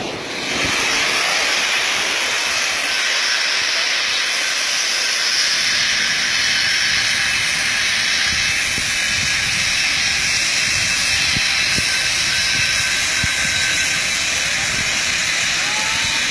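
Shelled corn pouring out of a collapsed grain bin in a steady rushing hiss.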